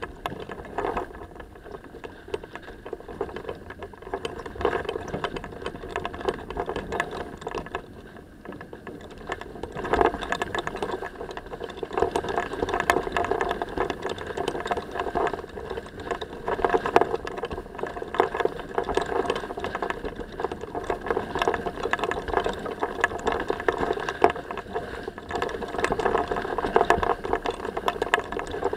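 Water rushing and splashing along the hull of a sailing yacht heeled under sail, swelling in surges, with a busy rattling throughout, heard through a camera fixed to the stern rail.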